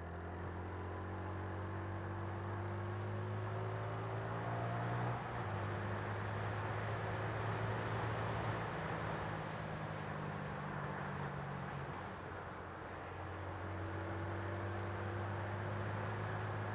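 Bullit Bluroc 125's 125cc single-cylinder engine running while the motorcycle is ridden, with wind and road noise. The engine note steps in pitch about five seconds in and dips in level around twelve seconds in before picking up again.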